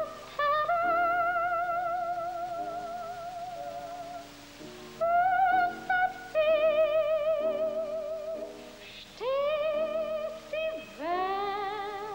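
A soprano sings long high notes with wide vibrato, sliding up into notes twice near the end, over a soft orchestral accompaniment. The sound is an old, narrow-band 1930s film soundtrack.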